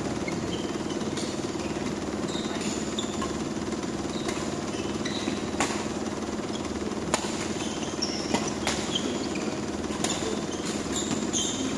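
Badminton rally: sharp racket-on-shuttlecock hits, most of them in the second half, roughly one every second and a half, with short high squeaks of court shoes. Under it runs a steady low hum.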